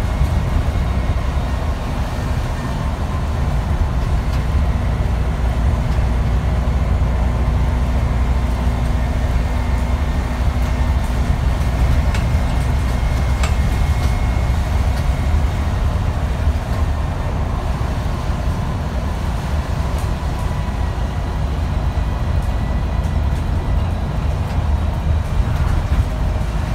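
Scania single-deck bus under way, heard from inside the passenger saloon: a steady low drone of engine and road noise with a faint high whine over it.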